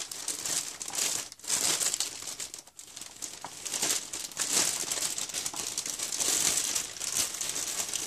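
Plastic wrapping crinkling as it is handled around a new mechanical keyboard, with dense crackling that dips twice in the first three seconds.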